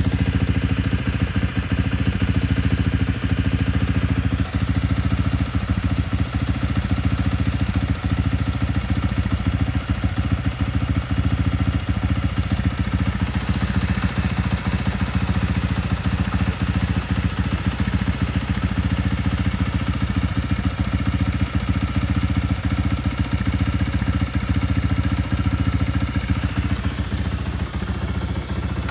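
Kawasaki ZX130 motorcycle's single-cylinder four-stroke engine idling steadily through its original, stock exhaust.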